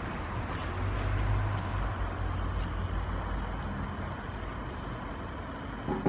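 Low, steady rumble of road traffic, swelling slightly about a second in as a vehicle passes.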